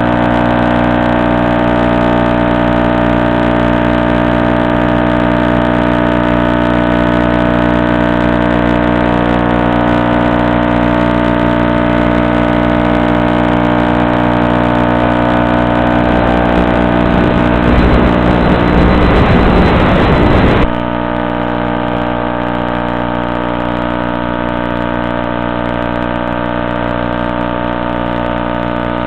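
A steady, loud buzz made of many fixed pitches on the Stratosurfer 1.3's onboard FPV audio. It holds its pitch while the motor current changes. Near the end a rush of noise swells for a few seconds and then cuts off abruptly, leaving a slightly quieter, duller buzz.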